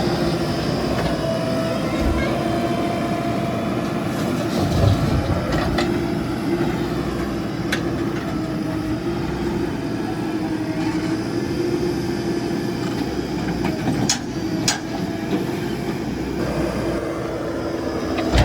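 JCB 3DX backhoe loader's diesel engine running steadily with a constant whine as it works, with a few sharp clanks about fourteen seconds in.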